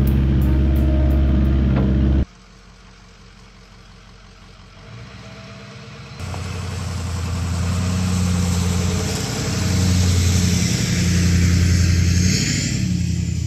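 Excavator diesel engine running. It drops abruptly to a much quieter stretch about two seconds in, then comes back loud about six seconds in, its pitch shifting up and down as the load changes.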